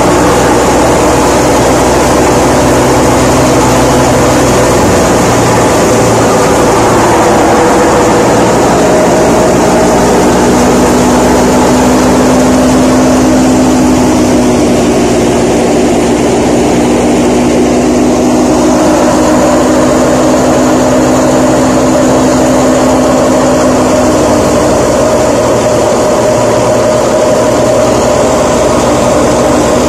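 Tractor-driven wheat thresher running under load while threshing wheat: a loud, steady mechanical hum from the machine and the tractor driving it, with a few held tones and no breaks.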